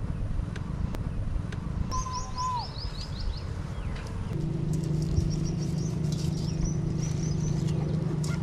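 Small birds chirping in quick runs of short descending notes, once about two seconds in and again from about five seconds on, over a low rumble. A short whistled note dips at its end near the first run, and a steady low hum sets in about four seconds in.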